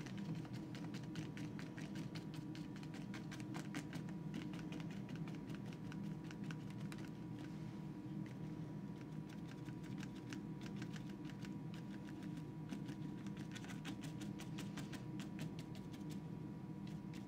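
Paintbrush dabbing on watercolour paper: a quick run of light taps, several a second, over a steady low hum.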